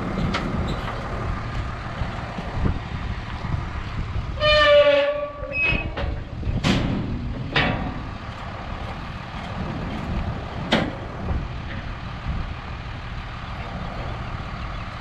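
Diesel machinery running steadily, with a loud horn-like blast lasting about a second a few seconds in, then sharp metal clanks: two about a second apart and one more a few seconds later.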